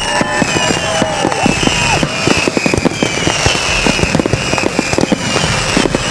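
Fireworks display: a dense, continuous string of bangs and crackles from bursting shells, loud throughout.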